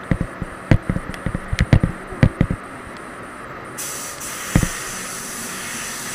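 Spray gun hissing with compressed air as it lays on white top coat, starting about four seconds in, over the steady rush of the spray booth's airflow. Before that comes a quick string of knocks and thumps.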